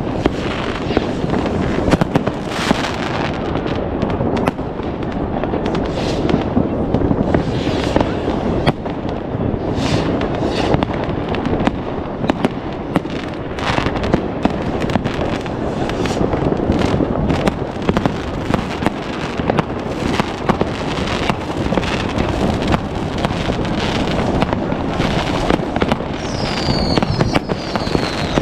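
Dense New Year's Eve consumer fireworks: a continuous crackle and rumble packed with many sharp bangs from firecrackers, rockets and fireworks cakes. Near the end, several high whistles fall in pitch.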